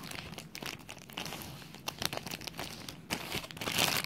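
Clear plastic bag crinkling irregularly as a toy is worked out of it, loudest a little before the end.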